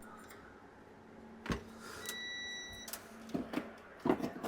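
A multimeter's continuity beeper sounds one steady high beep lasting just under a second, signalling a short to ground on the amplifier's circuit board. A sharp click comes about half a second before it.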